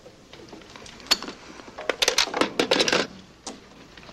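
A quick run of sharp clicks and clatters: one about a second in, then many close together for about a second, and a last one shortly after.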